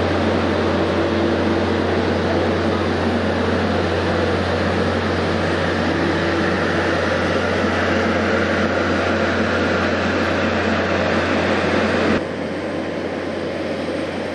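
Steady machinery drone with a strong low hum and several steady tones over it, dropping suddenly to a quieter, thinner drone about twelve seconds in.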